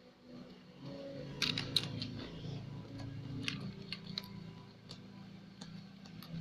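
Slime being kneaded and squeezed by hand, giving a run of sticky clicks and small pops over a low steady hum.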